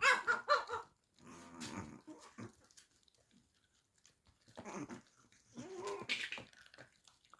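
Chihuahua growling and grumbling in short bouts.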